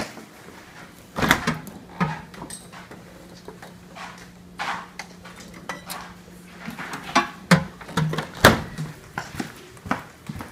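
Knocks and clinks as a refrigerator is opened and the glass bottles inside are handled. A steady low hum runs through the middle, and a few lighter footfalls come near the end.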